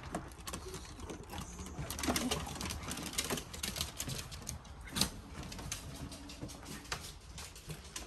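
A pack of miniature schnauzers scrabbling in through a door, claws clicking rapidly on wooden decking and floor, with some low whining from the excited dogs.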